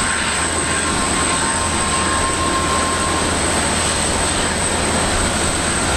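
Airbus A350-900 airliner taxiing, its Rolls-Royce Trent XWB jet engines giving a steady rush of jet noise with a thin high whine over it.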